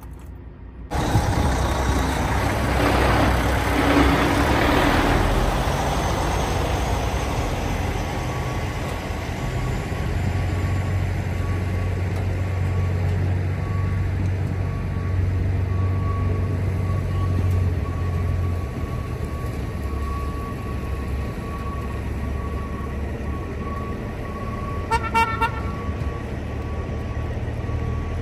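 Semi-truck diesel engines running in a truck yard, a steady rumble that starts abruptly about a second in, with a brief burst of horn toots near the end.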